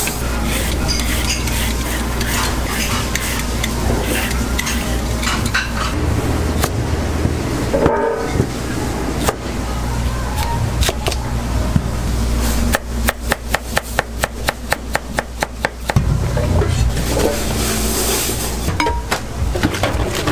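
Kitchen prep sounds over a steady low hum: scattered knocks and the clatter of stainless steel trays, then, about two-thirds of the way in, three seconds of rapid knife chopping on a plastic cutting board, about five strokes a second.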